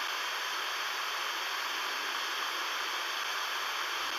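Steady FM radio static hiss from a software-defined radio receiver tuned to 103.6 MHz, with no station coming through.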